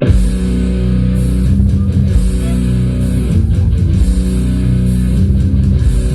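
Rock music with electric guitar and bass guitar, kicking in suddenly at full loudness and playing on steadily.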